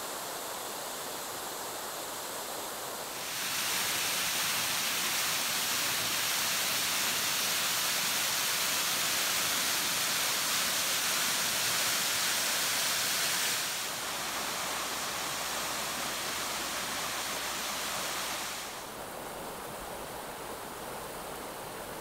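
Rushing water of small forest waterfalls and cascades, a steady hiss. It jumps louder about three seconds in, then drops back near fourteen seconds and again near nineteen as each new falls comes on.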